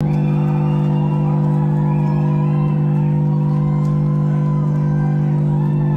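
Live rock band with distorted electric guitars and bass, holding a loud sustained low drone while a higher guitar line slides up and down above it.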